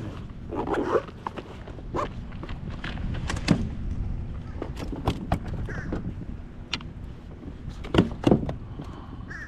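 Scattered knocks and clunks of gear being handled in a plastic kayak, with two loud knocks close together near the end, over a low steady rumble.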